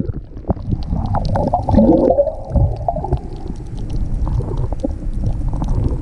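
Water heard underwater through a submerged action camera: a muffled low rumble of moving water with scattered clicks and crackles, and a louder gurgle about two seconds in.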